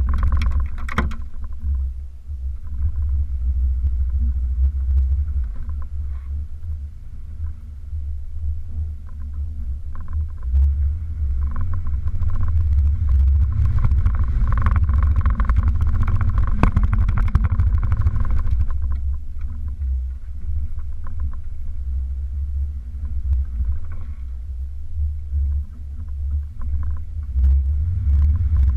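Toyota off-road vehicle's engine rumbling low and steady while crawling along a rutted mud trail, heard from the hood. Scattered knocks and rattles come from the body jolting over the ruts.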